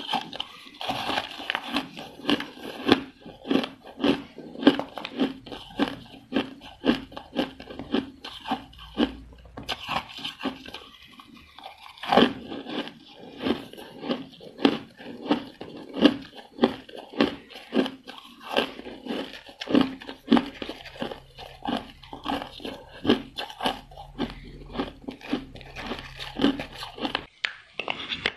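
Someone biting and chewing chunks of frozen ice close to the microphone: a fast, irregular run of crisp crunches, several a second, with a short break near the end before another bite.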